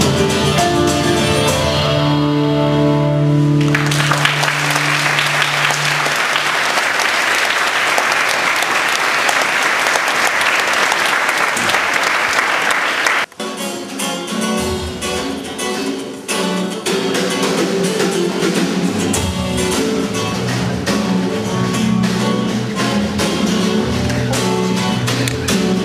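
A song with acoustic guitars ends on a held chord, then the audience applauds for about nine seconds. After an abrupt cut, acoustic guitars and a band start playing the next carol.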